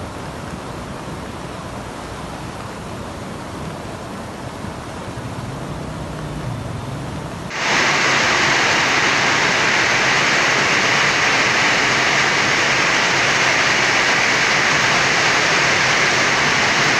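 Floodwater rushing in a flash flood: a steady, noisy roar. About halfway through it cuts abruptly to a louder, hissier rush of water from another recording.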